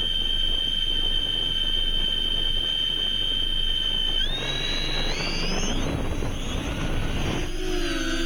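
FPV drone's motors whining at a steady high pitch, then throttling up about four seconds in, the whine rising in pitch over a rushing noise. Music comes in near the end.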